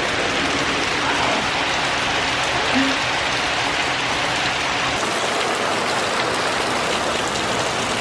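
Heavy rain pouring down in a steady, dense hiss of a nighttime downpour, the sound growing a little brighter about five seconds in.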